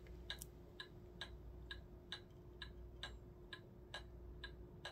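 Faint clock ticking steadily, about two ticks a second, over a low steady hum.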